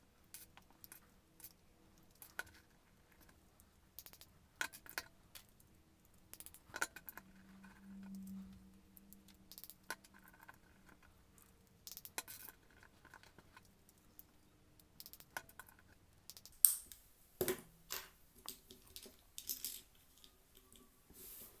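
Small plastic clicks and scrapes, scattered and faint, as a magnetic 3x3 speed cube's centres are re-tensioned with its adjustment tool and its layers turned.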